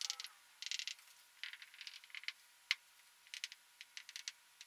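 Faint writing sounds: short scratchy strokes and light taps in several small groups, with one sharper click a little under 3 seconds in, as the angle values are written into a list.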